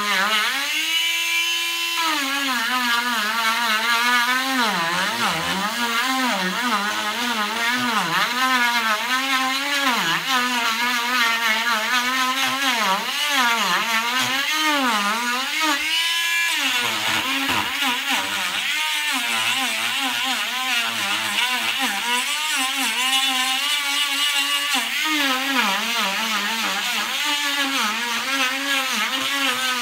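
Handheld rotary carving tool with a small burr cutting into wood, its motor whine wavering up and down in pitch as the burr bites and eases off. About a second in, and again briefly around sixteen seconds, the pitch rises as the bit runs free of the wood.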